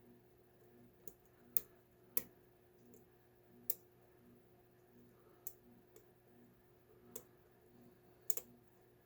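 Irregular, faint, sharp metallic clicks, about nine, as a lock pick and tension wrench work the pins of a deadbolt's cylinder.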